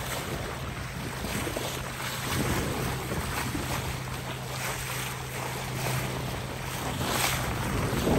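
A sailboat's bow cutting through the sea under way: a steady rush and splash of water, with wind buffeting the microphone.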